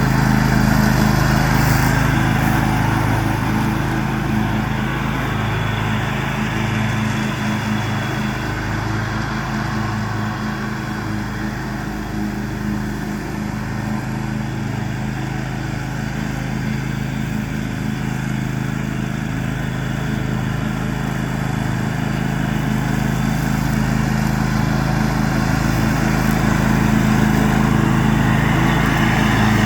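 John Deere X500 riding lawn tractor running steadily while mowing, its engine and cutting deck a steady drone that grows a little fainter midway and louder again near the end.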